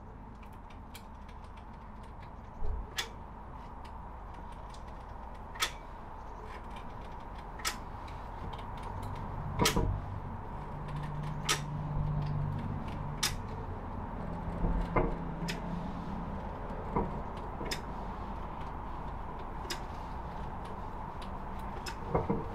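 Hand caulking gun clicking as its trigger is squeezed and released to push blobs of adhesive out of the cartridge: sharp clicks every one to two seconds over a faint steady hum.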